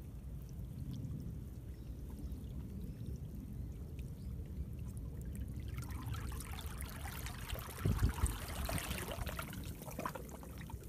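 Seawater flowing and trickling through a narrow channel between shore rocks. About halfway through it swells into a louder rushing and splashing as a surge pours in, with a couple of low thumps near the peak, then eases near the end.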